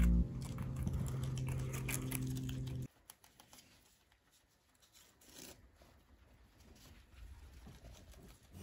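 Guinea pigs chewing a carrot, which stops abruptly about three seconds in; after that only faint, occasional rustling and chewing in hay.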